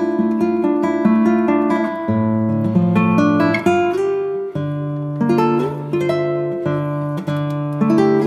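Instrumental background music on a plucked acoustic guitar: picked notes ringing over a bass line that changes pitch about every two seconds.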